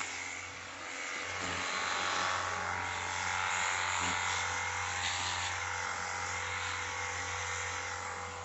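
XTD cordless pressure washer running: a steady electric pump hum under the hiss of the nozzle spraying a fine mist. It cuts off at the very end.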